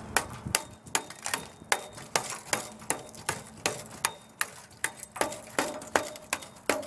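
Hand hammer striking the ceramic shell mold on a cast bronze piece, breaking the shell away: a steady run of sharp blows, about two or three a second.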